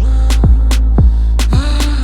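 Background music with a steady beat: heavy kick drum and a deep bass that comes in loudly right at the start, with crisp ticks on top.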